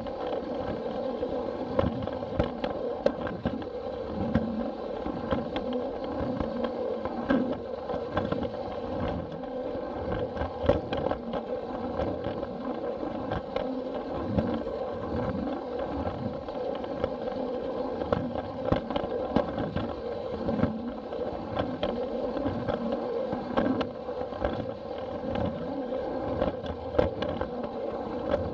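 Plarail battery-powered toy train running along plastic track: a steady whine from its small electric motor and gearbox, with a regular low pulsing and scattered clicks from the wheels on the track.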